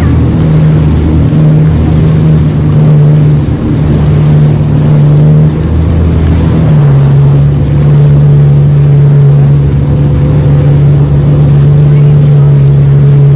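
Jet ski engine running steadily at speed: a loud, even drone whose pitch shifts slightly a little past halfway.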